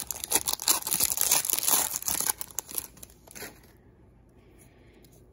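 Plastic wrapper of a 2016 Topps Holiday baseball card pack being torn open and crinkled by hand. It makes a dense run of crackles that dies away after about three seconds.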